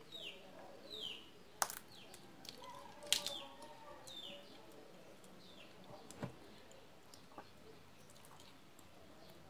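Boiled peanut shells being cracked open by hand, a few sharp cracks, the loudest about one and a half and three seconds in. Behind them a bird repeats a short chirp falling in pitch about once a second, fading out after the first half.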